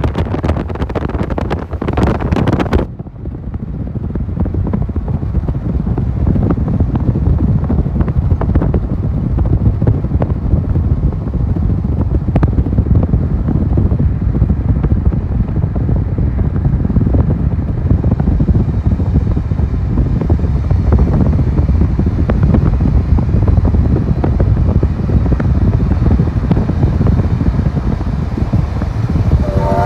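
Steady low rumble of road and wind noise from a car pacing a moving train, with heavy wind buffeting on the microphone for the first three seconds. A train whistle starts at the very end.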